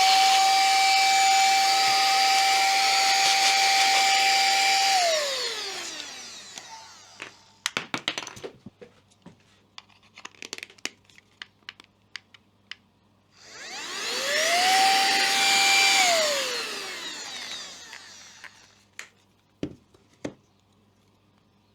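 Silvercrest SHM A1 mini cordless handheld vacuum/blower running as a blower, a steady high motor whine that winds down, falling in pitch, about five seconds in. After some clicks and handling knocks, it starts again about thirteen seconds in, runs for a couple of seconds and winds down once more.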